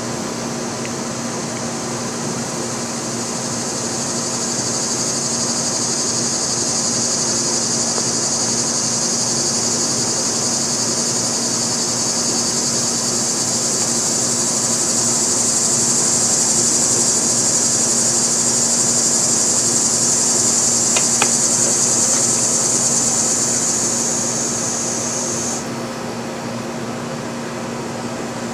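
A loud, high, steady insect drone that swells over several seconds and then cuts off suddenly near the end, over a steady low mechanical hum.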